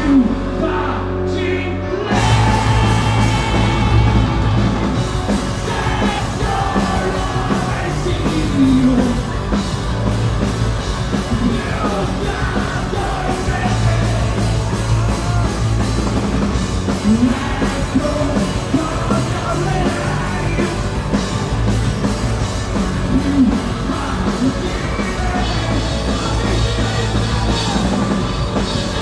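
Live rock band playing loud: electric guitars, bass and drums, with a singer singing into the microphone. The full band comes in about two seconds in after a held chord.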